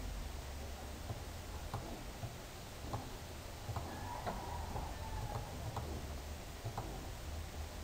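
Scattered computer mouse clicks, roughly one a second, over a low steady hum.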